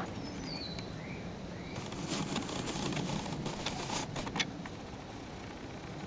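Faint outdoor ambience with a few short bird chirps in the first two seconds, then a run of light clicks and rustles, the sharpest about four and a half seconds in.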